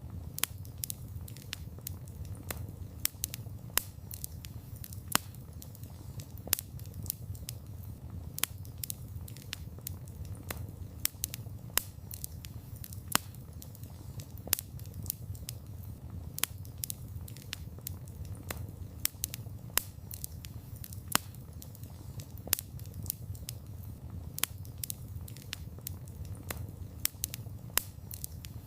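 Wood fire burning: a steady low rumble with frequent irregular crackles and a few sharper pops.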